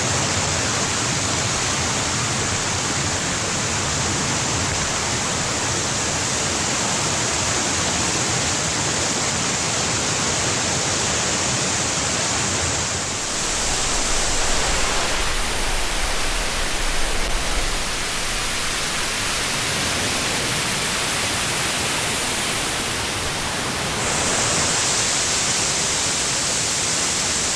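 Mountain waterfall rushing steadily as a loud, even wash of water noise. About halfway through the sound shifts, with a deeper rumble for a few seconds.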